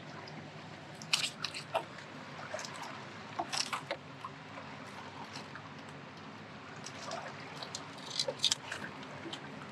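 Close handling noise of the angler working a freshly caught bass and its lure: irregular crackles and clicks in short clusters, about a second in, around three and a half seconds and again near the end.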